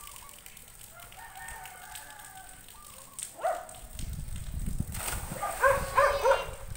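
A rooster crows once, a long call from about one to three seconds in. Near the end a dog barks several times in quick succession, louder than the crow.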